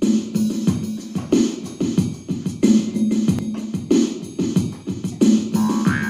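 Jaw harp twanging in a steady rhythm of strong strokes about every two-thirds of a second over a low droning note. About five and a half seconds in, a higher melody line joins.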